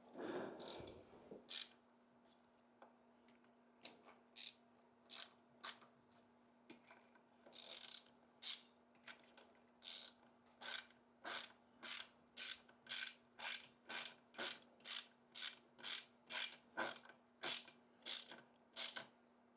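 Ratchet wrench clicking as it is swung back and forth, tightening studs into a 1967 Triumph TR6 engine. The clicks come irregularly at first, then settle into a steady run of about two a second.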